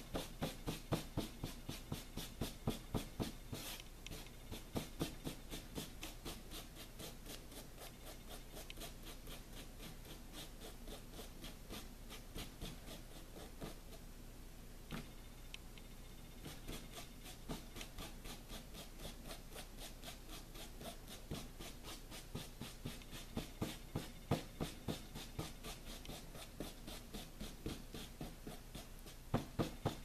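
Crumpled plastic wrap dabbed and rubbed against a canvas board in quick repeated strokes, about three a second. The strokes are louder near the start and again near the end, and softer through the middle.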